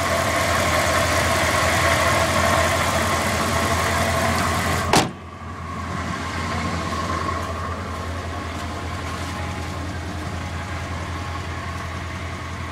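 A 1999 Dodge Ram's 318 (5.2-litre) V8 idling steadily on its stock exhaust. About five seconds in there is one sharp thump as the hood is shut, and after it the engine sounds quieter and duller.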